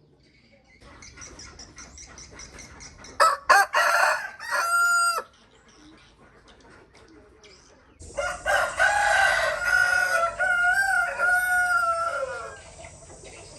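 Rooster crowing: a short loud call about three seconds in, then a long drawn-out crow that holds its pitch and falls away at the end. Quieter rapid clucking leads into the first call.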